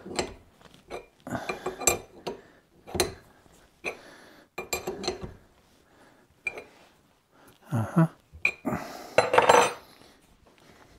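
A steel hydraulic steering cylinder and a wrench being handled in a bench vise: scattered metal clinks and knocks, a few short ringing taps, and a longer scraping burst a little after 9 seconds.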